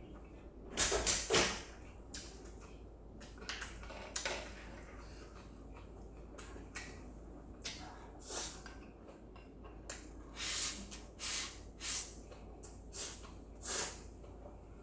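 A person eating stir-fried instant noodles: short, separate mouth noises of slurping and chewing, loudest about a second in and coming more often near the end.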